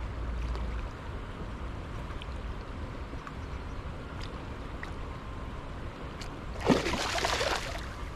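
A hooked fish thrashing and splashing at the water's surface while being played on a long hand-pole rod: one loud burst of splashing, about a second long, starting a little past two-thirds of the way in, over a steady low water-and-outdoor background.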